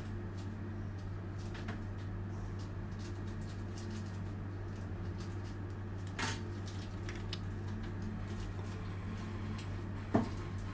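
Steady low electrical hum under faint scattered clicks, with two soft knocks about six seconds and ten seconds in as the cake and scraper are handled.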